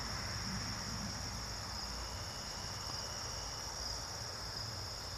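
Crickets chirring steadily in one continuous high-pitched drone, over a faint low background rumble.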